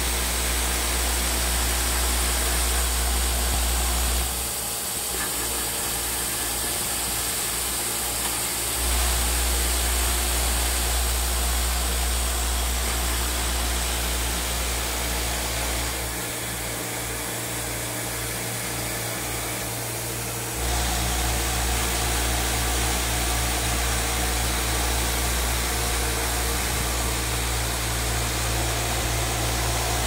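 ZYJ-620 cable clip and nail assembly machine running, its vibratory bowl feeders giving a steady mechanical hum. The deepest part of the hum cuts out twice for about four seconds each time and then returns.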